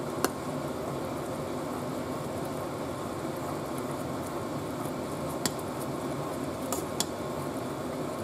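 A plastic spoon stirring glutinous rice simmering in a pot, over a steady hiss. The spoon knocks against the pot four times: once just after the start, once about halfway, and twice close together near the end.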